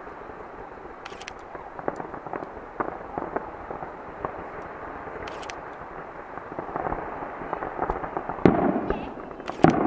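Fireworks going off in a run of scattered crackling pops that grow denser and louder near the end, with a couple of heavier bangs.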